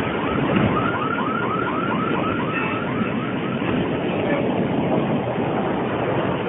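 An electronic alarm siren yelping in quick repeated sweeps, about five a second, which fade out a little past halfway. A steady rumbling wash of noise runs beneath it.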